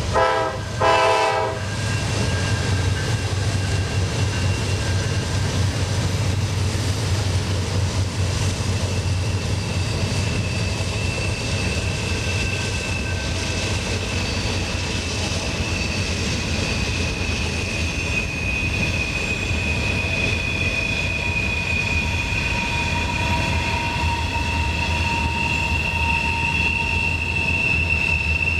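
A diesel train's air horn sounds a chord that cuts off about a second and a half in. Then the train rolls by with steady low engine rumble and a high, drawn-out wheel flange squeal that grows louder in the second half.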